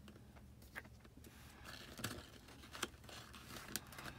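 Hands handling and pressing a pleated paper rosette onto patterned paper: faint paper rustling with four short, sharp clicks.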